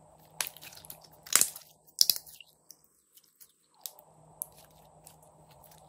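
Glossy purple slime with glitter squeezed and stretched between the hands, giving sharp wet clicks and pops: a dense crackly run in the first two seconds, then single pops spaced out.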